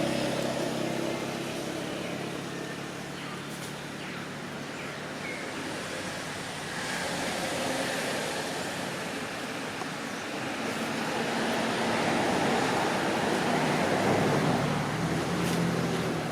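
Outdoor road traffic noise: a vehicle engine is heard near the start, and another vehicle passing grows louder and then fades about twelve to fifteen seconds in.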